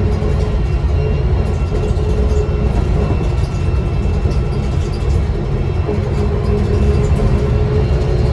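Diesel bus engine and drivetrain heard from inside the passenger cabin while driving: a low rumble with a steady whine and a faint higher whistle over it, the turbocharger whistle the bus is known for.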